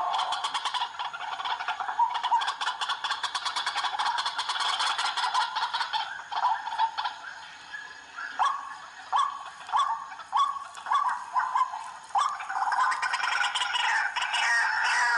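White-breasted waterhen calling over and over, a chorus of harsh repeated notes. It thins to a run of separate calls a few times a second about halfway through, then thickens again near the end.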